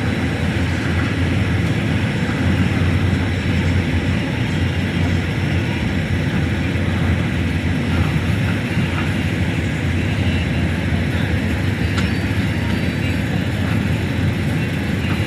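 Excavator's diesel engine running steadily, a low even rumble, with a faint click about twelve seconds in.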